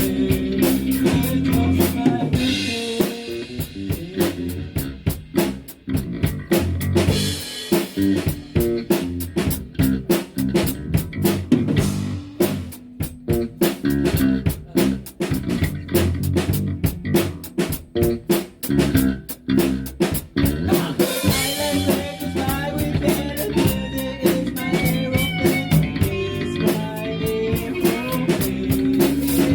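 Rock band playing an instrumental passage on drum kit, guitar and bass. Partway through, the sound thins to mostly separate drum hits, then the full band comes back in near the end.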